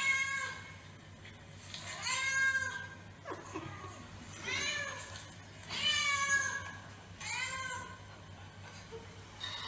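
Chow chow dog whining: five high, rising-then-falling cries, each under a second long, roughly every one and a half seconds.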